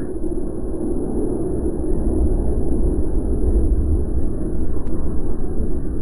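A steady low rumble, strongest in the deep bass, with no distinct calls or impacts.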